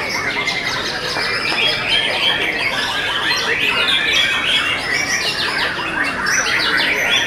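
White-rumped shama (murai batu) song: rapid, varied, shrill phrases that never pause. Several caged birds are singing over one another.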